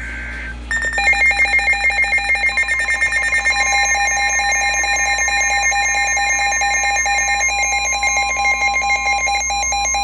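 Midland weather alert radio sounding its warning alarm: a loud, rapid electronic beeping that switches between several pitches, starting about a second in. From about three seconds in, a steady single tone runs under it, the NOAA Weather Radio warning alert tone. It signals that a severe thunderstorm warning has been received.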